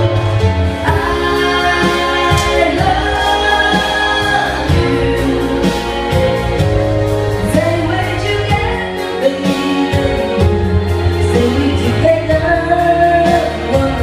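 A woman singing a slow pop song into a microphone over an amplified backing track with a steady deep bass, her voice holding and sliding between long notes.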